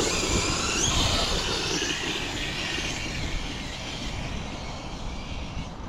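Losi DBXL-E 2.0 electric RC truck with an 800 kV brushless motor on 12S, whining at speed as it drives away. The whine rises in pitch in the first second, then fades as the truck gets farther off.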